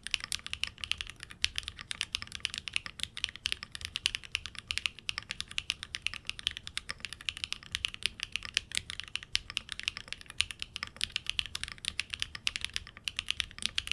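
Fast, continuous typing on a Neo Ergo custom mechanical keyboard fitted with Owlab Neon switches on a polypropylene (PP) plate: a dense, steady stream of key clacks.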